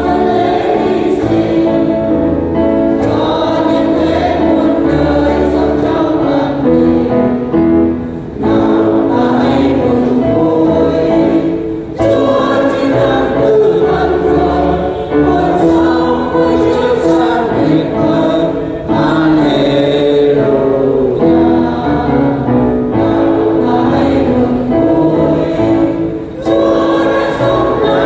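Church choir singing a Vietnamese Catholic Easter hymn in long held chords, breaking briefly between phrases every few seconds.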